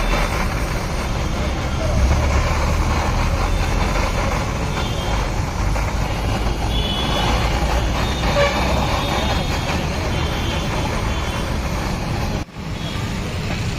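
Steady street ambience: low traffic rumble with indistinct background voices.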